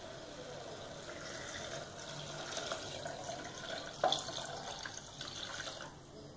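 Water poured from a steel vessel into a pressure cooker of fried masala, splashing in from about a second in until it stops near the end. A single sharp clink about four seconds in.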